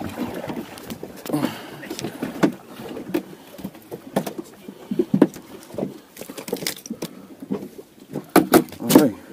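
Irregular knocks and clatter, with a cluster of louder knocks near the end.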